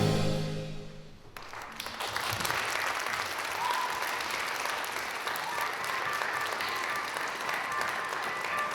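Orchestral music dying away in the first second, then a theatre audience applauding steadily.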